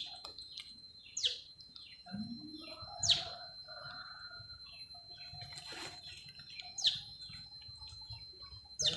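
Short, sharp high-pitched animal chirps, each falling in pitch, five of them spaced one to two seconds apart, over a faint steady high whine.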